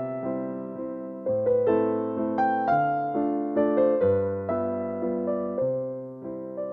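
Background music played on piano or electric piano: a gentle melody of struck notes that ring and fade, over sustained bass notes that change about every second and a half.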